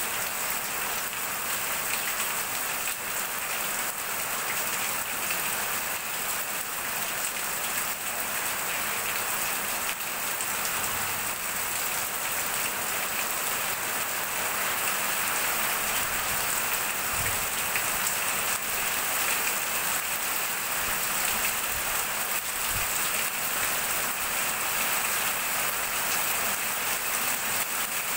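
Heavy downpour, a steady hiss of rain with water streaming off the edge of a corrugated roof and splashing on the ground below.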